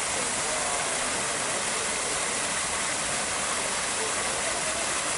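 Small waterfall spilling over rocks into a pool: a steady rush of falling water.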